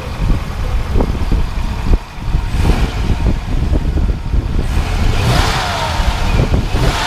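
Freshly rebuilt Gen VI 454 big-block Chevy V8 idling at operating temperature during its first run-in, running smooth and quiet. About five seconds in there is a short swell of hiss with a falling whine.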